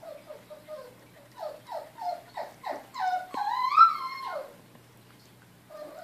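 Miniature pinscher puppy whining as it licks at a treat held to its mouth: a run of short whines, each dropping in pitch, then one longer, louder whine about three seconds in that rises and then falls away.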